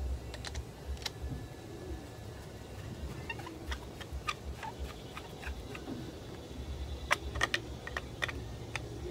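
Faint, irregular small clicks and ticks of a screwdriver working in a carburetor body while the new main jet, with its nylon crush washer, is screwed in and the carburetor is handled. The clicks come more often about seven to eight seconds in.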